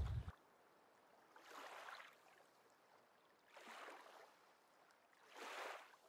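Very quiet lapping of small waves on a lake shore, three soft washes about two seconds apart.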